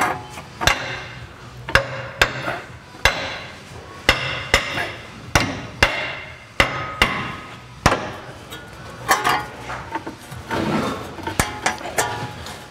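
Hammer tapping a new lower control arm's rubber bushings into their mounts: more than a dozen sharp metallic strikes at uneven spacing, several ringing briefly.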